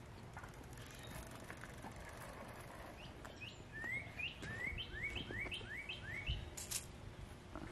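A songbird calling a run of short rising chirps, about two a second, for a few seconds in the middle, over faint background noise. A brief click comes near the end.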